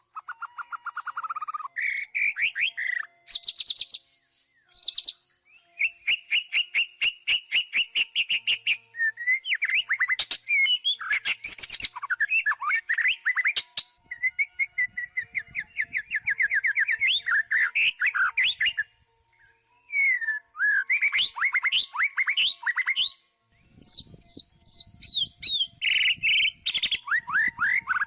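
White-rumped shama singing a loud, varied song of fast repeated-note runs, trills and sliding whistles, broken by a few short pauses.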